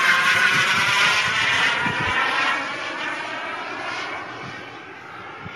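Radio-controlled model jet's small gas turbine engine whining as the jet flies past, loud at first and fading away over the next few seconds, with a sweeping whoosh as it passes.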